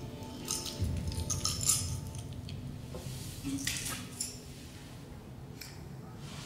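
A small metal key on a chain jingling and clinking as it is handled and set down on a cloth-covered table, in two bursts of clinks, around the first and fourth seconds.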